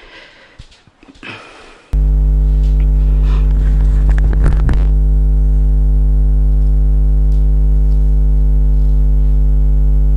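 Loud, steady electrical hum: a low buzz with many overtones that switches on abruptly about two seconds in and cuts off suddenly near the end, after faint rustling handling noise.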